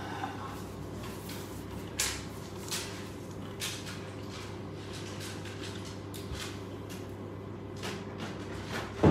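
Small clicks and short sliding scrapes as the segments of a Metal Build Lightning Striker Pack cannon are pulled out and snapped into place by hand. The clicks come at irregular moments over a steady low room hum.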